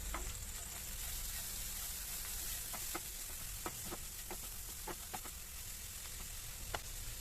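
Onion, coconut and tomato masala frying in coconut oil in a pan: a steady sizzle with scattered light ticks.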